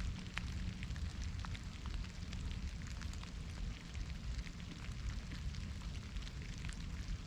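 Soft rain falling in a forest: a steady hiss scattered with many small drop ticks, over a continuous low rumble.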